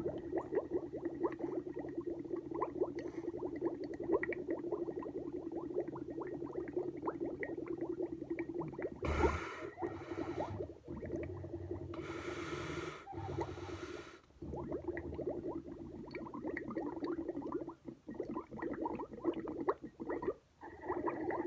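Milk bubbling through a drinking straw as air is blown steadily into the glass, a fast continuous gurgle of popping bubbles. It is broken by a sharp breath in through the nose about nine seconds in and a longer one from about twelve to fourteen seconds.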